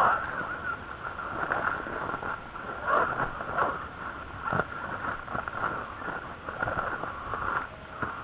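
Dry scrub rustling and crackling against someone pushing through it on foot, in an irregular run of short brushes and snaps.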